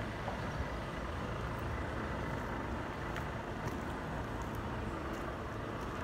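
Scania R520's 520 bhp V8 diesel engine idling steadily, a low even rumble.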